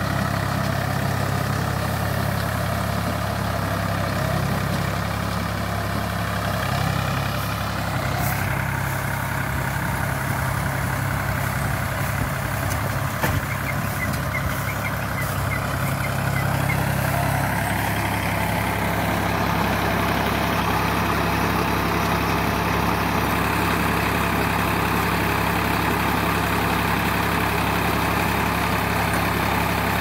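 Tractor diesel engine running steadily as it pulls and drives a tractor-mounted round baler picking up straw, the baler's machinery adding a clatter over the engine.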